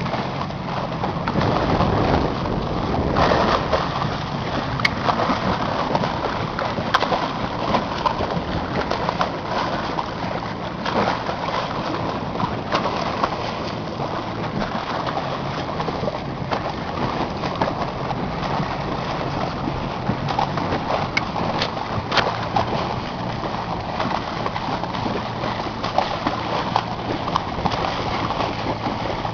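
A boat motor running steadily, with water washing and wind noise, and frequent short splashes and knocks throughout.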